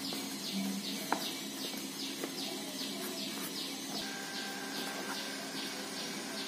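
Knife cutting through a slab of besan mohanthal on a steel plate, with a few light clicks of the blade against the steel. Faint high chirps repeat about twice a second over a low steady hum.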